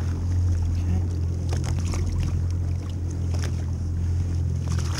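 Boat's outboard engine idling as a steady low hum, with a few brief splashes and knocks as a black drum is lowered back into the water over the side.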